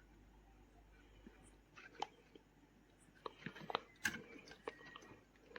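Faint, scattered clicks and light taps from laptop parts being handled during reassembly: a single click about two seconds in, then a quick run of them in the second half.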